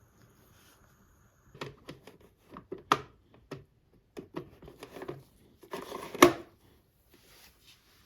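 A series of irregular small clicks and taps, like small hard objects being handled and set down, with a short scraping rustle ending in a sharp click about six seconds in.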